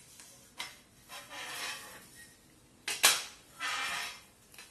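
Black steel boltless rack parts knocking and scraping as a beam is fitted into a slotted upright: a couple of light knocks, a sliding scrape, then a sharp click about three seconds in, followed by more scraping.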